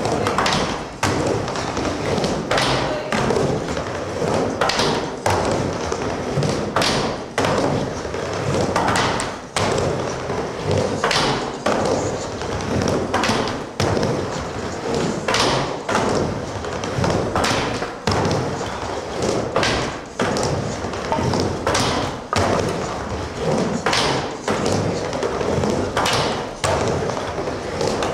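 Skateboard riding back and forth on a wooden mini ramp: a steady rumble of wheels on plywood, with a sharp knock at the coping every one to two seconds.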